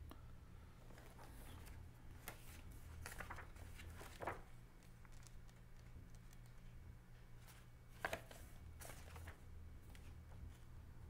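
Soft rustling and light clicks of book pages being leafed through, with two sharper page sounds about four and eight seconds in, over a steady low hum.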